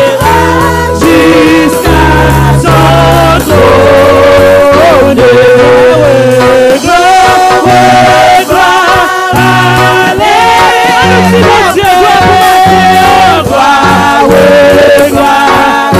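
A woman leading a gospel worship song, singing into a microphone with long held notes over a steady instrumental bass and chord accompaniment.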